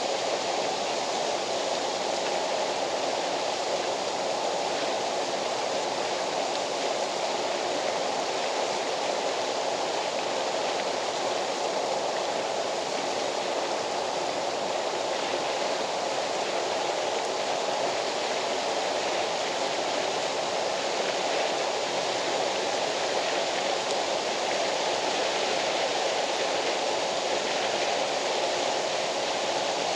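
A waterfall running steadily: an even, unbroken rush of water.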